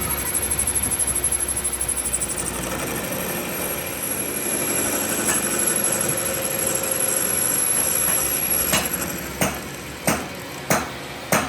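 A machine running steadily with a thin high whine, then from about nine seconds in a hammer striking metal, about one and a half blows a second, each blow ringing briefly.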